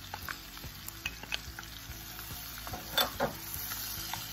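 Diced bell pepper and onion sizzling in butter and bacon fat in a frying pan, stirred with a wooden spatula that taps and scrapes against the pan, with the loudest knock about three seconds in.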